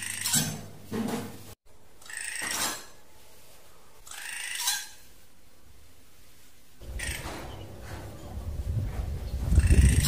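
Drongo calls used as a lure: short, harsh, scratchy calls repeated every second or two. A low rumble rises under them over the last three seconds.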